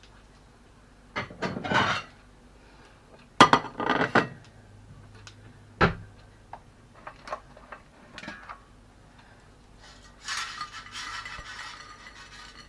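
Kitchenware clattering: metal tongs and an air fryer basket knocking and clinking as freshly air-fried potatoes are taken out, in several bursts. A rough scraping rustle of about two seconds comes near the end.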